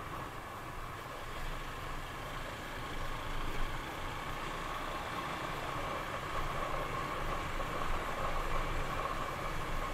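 Motor vehicle running steadily, a continuous engine and road noise with a constant drone and no distinct events.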